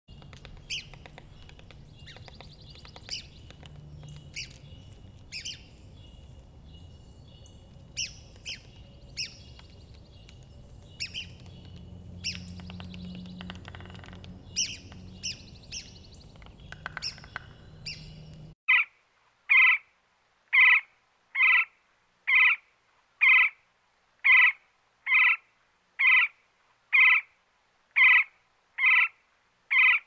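Woodpecker calling. First come sharp, short, high notes at irregular intervals over a steady woodland background with a thin, steady high tone. After about 18 seconds the background cuts out and a loud call note repeats evenly, about once a second.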